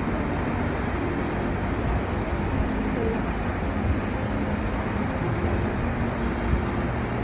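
Steady rushing noise, with faint music underneath.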